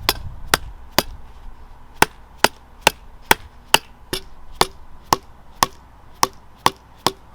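Steady hammer blows, about two a second with a brief pause about a second in, driving a tight-fitting suspension bushing onto a control arm.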